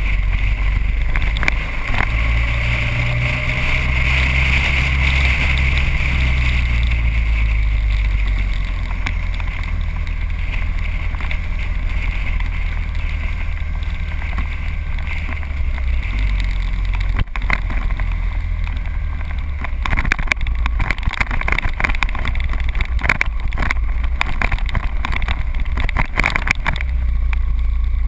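Motorcycle engine running while riding, its low note shifting a few times as the revs change, with wind noise on the microphone. Short crackling buffets come through often in the second half.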